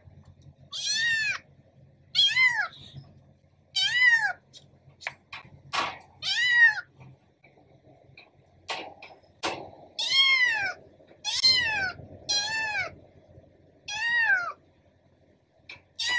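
Kittens meowing: about eight high meows, each rising then falling in pitch, with a pause of a few seconds in the middle.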